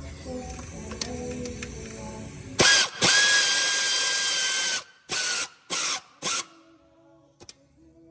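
Power ratchet spinning a fastener: a high whine over a loud hiss, one run of about two seconds, then three short pulses, the last the briefest, as the fastener is run down and snugged.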